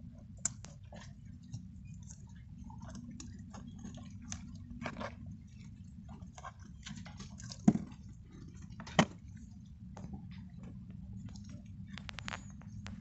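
Clicks, scrapes and knocks of a Raymarine ST4000+ autopilot display's plastic housing being worked free of its sealant-bedded bulkhead cutout by hand, with two sharper knocks in the second half, over a steady low hum.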